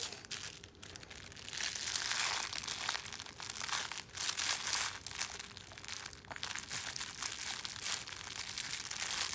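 Soft cloth baby book crinkling and rustling in irregular bursts as it is squeezed, handled and mouthed.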